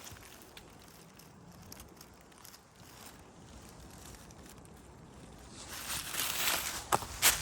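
Footsteps crunching on a mountain path: faint scuffing at first, then louder crunching steps with sharp clicks near the end.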